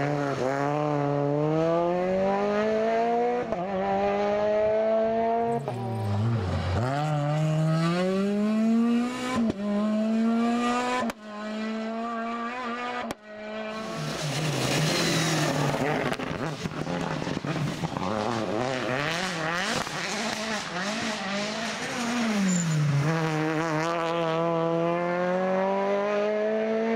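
Rally car engines revving hard through the gears as the cars pass, the pitch climbing and dropping at each gear change; several passes are cut together, including a Peugeot 208 and a Citroën C4 WRC.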